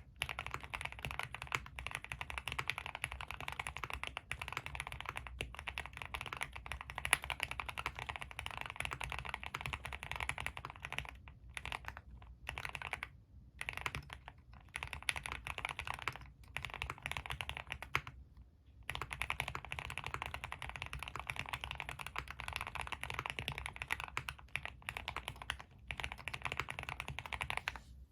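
Fast continuous typing on a custom Suit80 mechanical keyboard with linear Tealios v2 switches in Cherry top housings, aluminium plate, full foam and GMK keycaps. It makes a dense run of keystroke clacks, broken by a few short pauses.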